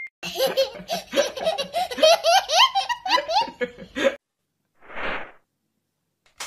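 A toddler laughing heartily: a run of quick, high, bubbling giggles lasting about four seconds. A short soft hiss follows about five seconds in.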